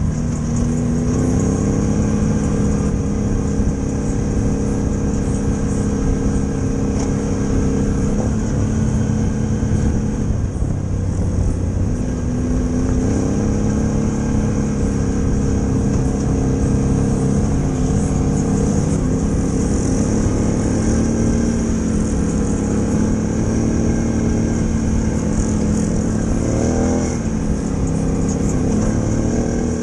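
A motor vehicle's engine running steadily, its pitch holding and then shifting up or down every few seconds, with a brief rise and fall in pitch near the end.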